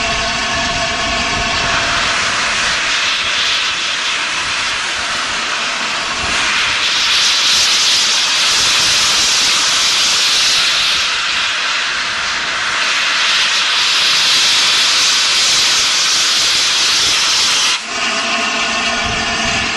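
The Peppercorn A1 Pacific steam locomotive 60163 Tornado, standing at the platform, blowing off steam with a loud, steady hiss. The hiss grows stronger a few seconds in, then cuts off suddenly near the end.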